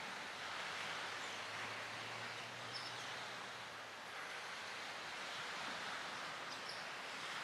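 Steady wash of small waves on the bay shore, swelling and easing slowly, with two brief, faint high bird chirps.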